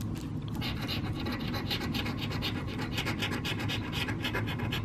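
Scratch-off lottery ticket being scratched: quick back-and-forth scraping strokes over the ticket's coating, many strokes a second, picking up about half a second in.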